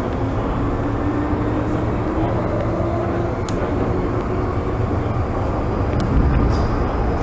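MTR M-train running on the Tseung Kwan O line, its traction motor whine rising slowly in pitch over the first few seconds and then holding, over a steady rumble of wheels on rail. Two sharp clicks come about halfway through and a little before the end.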